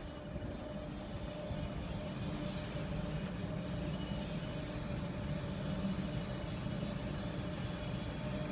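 Heavy-lift ship's machinery running: a steady low hum with a constant whine above it, growing slightly louder a second or so in.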